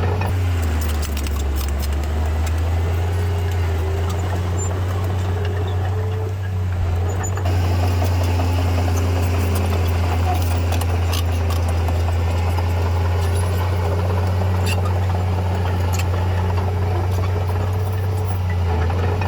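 Diesel engine of heavy earthmoving machinery running steadily, a deep continuous drone with scattered sharp clicks and clanks over it.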